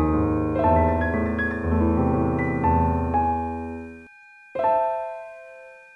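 Slow, soft solo piano music: sustained chords over low bass notes. About four seconds in the music cuts off abruptly, then a single chord sounds and fades away.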